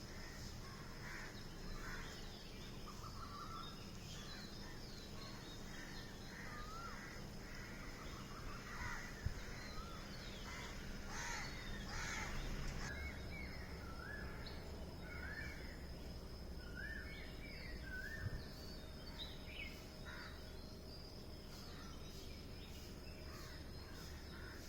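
Several birds chirping and calling, many short upward-sliding notes overlapping, busiest in the middle, over a steady low background hum.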